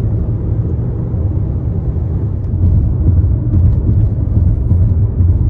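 Steady low rumble of a car driving at highway speed, heard from inside the cabin: tyre and engine noise. It gets a little louder about two and a half seconds in.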